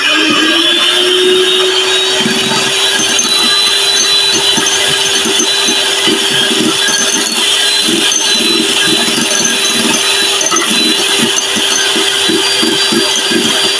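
Electric hand mixer running steadily, its beaters whipping cream mixed with melted chocolate in a glass bowl. The motor comes back up to speed in the first second, then holds a steady whine over a rapid, irregular churning of the beaters through the cream.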